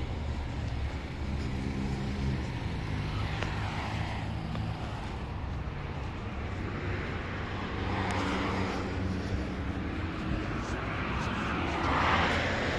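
A car engine running steadily with a low hum. Swells of rushing noise rise and fall three times, the loudest near the end.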